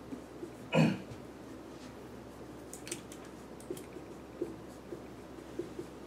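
Marker pen writing on a whiteboard: faint scratches and small taps of the strokes, with a few short high squeaks near the middle. About a second in comes one short, louder throat sound from the writer.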